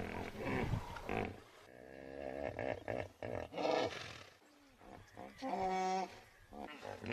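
Wild animal roars and growls, several separate calls in quick succession, with one long, steady call about five and a half seconds in.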